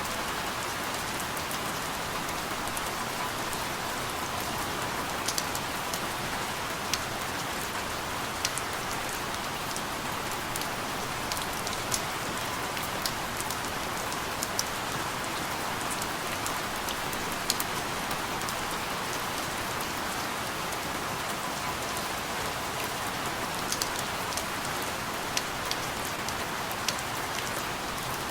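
Steady rain falling: an even hiss, with scattered sharper ticks of single drops striking at irregular moments.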